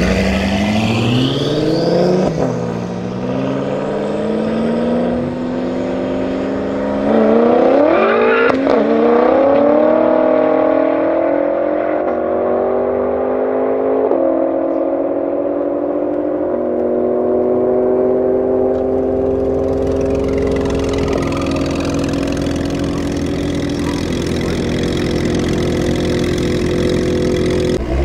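Tuned BMW M6 F13's twin-turbo 4.4-litre V8 at full throttle, accelerating hard through the gears. The pitch climbs and drops back at each upshift, about six times.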